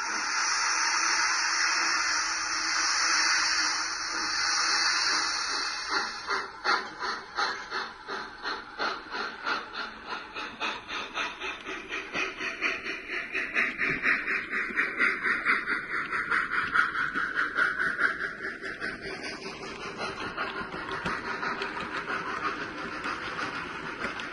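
Sound-fitted model of an LNER A3 Pacific steam locomotive, 60046 Diamond Jubilee, hissing steam while standing. About six seconds in it starts away, its chuffs beginning slow and quickening as the train gets under way. In the last few seconds the chuffs blur into a steadier running sound.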